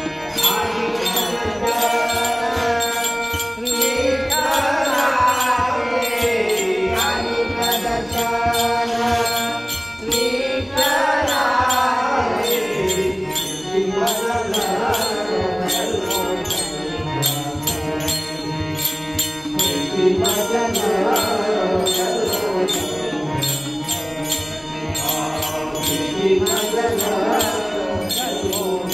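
An elderly man singing a Marathi abhang (devotional song) in long, drawn-out phrases. He sings over a steady held drone and a quick, even jingling beat.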